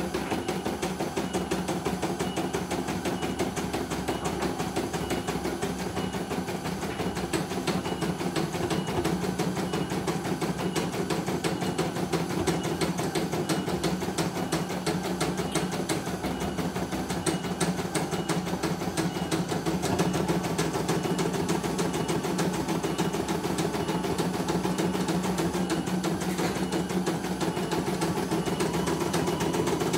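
CNY E900 computerized embroidery machine stitching a design: a fast, steady stream of needle clicks over the hum of its motor.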